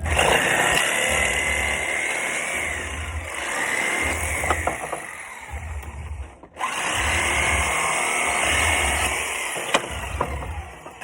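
Sawzall reciprocating saw with a metal-cutting blade running, cutting through the nails that hold pallet boards to the 2x4 stringers. It runs in two long stretches with a wavering whine, stopping briefly about six and a half seconds in and then starting again.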